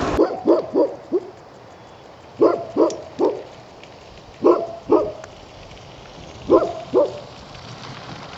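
A dog barking in four short bursts of two to four barks, with pauses between.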